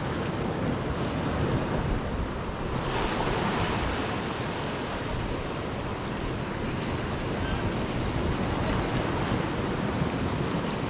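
Sea surf washing and breaking over shoreline rocks, with one wave breaking louder about three seconds in. Wind buffets the microphone, adding a low rumble.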